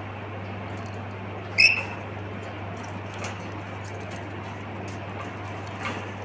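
A pet lory gives one short, high squeak about a second and a half in, with a few faint clicks later, over a steady low hum.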